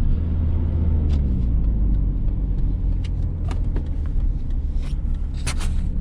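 GMC Sonoma pickup on the move: a steady engine and road rumble, with a few light rattles.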